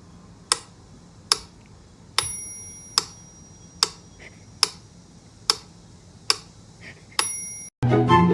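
Sharp, even ticking, about one tick every 0.8 seconds, with a ringing bell-like ding twice, about two seconds in and again near the end. Music cuts in suddenly just before the end.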